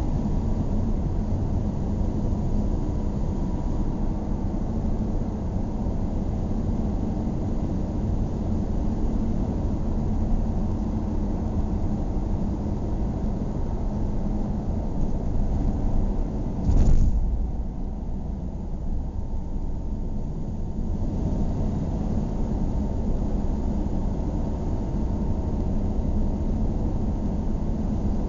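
Car driving along a mountain road, heard from inside the cabin: steady engine and tyre rumble. A brief thump a little past halfway is followed by a few seconds of duller, quieter running before the rumble returns.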